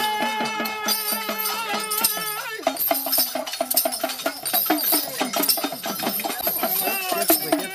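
Devotional folk music: a held pitched note for about the first two and a half seconds, then singing over a steady percussion rhythm with a jingling rattle.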